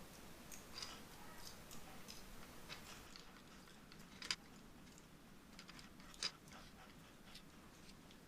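Faint clicks and taps of small plastic Joy-Con parts being handled and pressed together during reassembly, with two sharper clicks about four and six seconds in.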